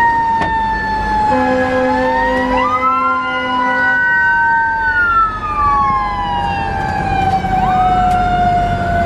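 Fire engine siren wailing up and down while responding to a call, heard from inside the truck's cab, with more than one siren tone overlapping. A steady horn blast of about three seconds comes a second or so in, over the low rumble of the truck's engine.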